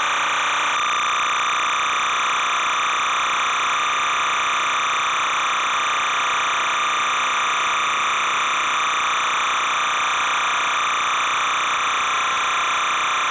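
Steady hiss of videotape noise that never changes in level, brightest in the upper-middle range, with no game sound or commentary on it.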